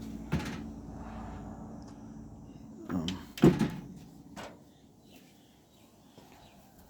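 A few knocks and clicks over a steady low hum. The loudest knock comes about three and a half seconds in, and the hum fades soon after.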